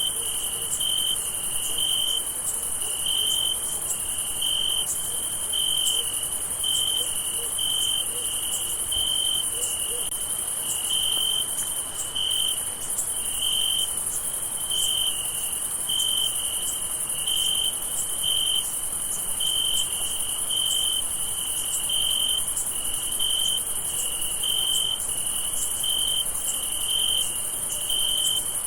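Crickets chirping at night: a steady, even rhythm of short high chirps, a little over one a second, over a continuous higher-pitched insect trill.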